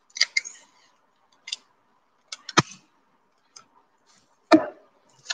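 Sellotape being handled to cut off a piece: a few short, separate clicks and taps, with two louder knocks about two and a half and four and a half seconds in.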